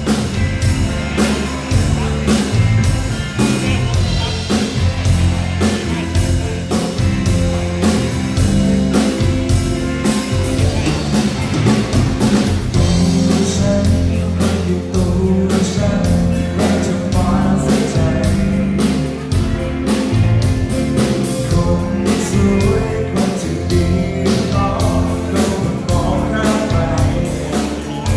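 Live rock band playing: electric guitars, bass guitar and a drum kit keeping a steady beat, with a singer on vocals through the PA.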